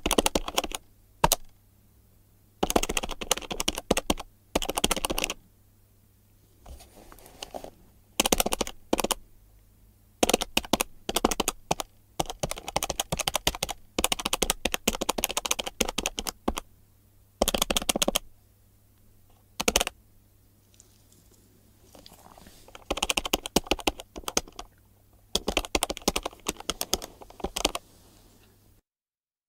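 Plastic calculator buttons pressed in quick runs of clicks, several presses a second, with short pauses between runs. A faint steady hum lies under it, and it stops abruptly about a second before the end.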